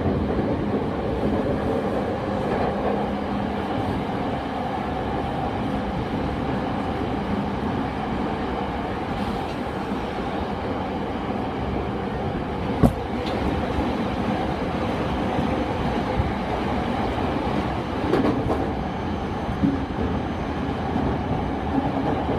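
Running noise of a Tokyo Waterfront Area Rapid Transit 70-000 series electric train, as heard inside the car while it travels at speed. A low steady motor tone fades out in the first few seconds. A single sharp click comes about 13 seconds in, and lighter knocks follow later.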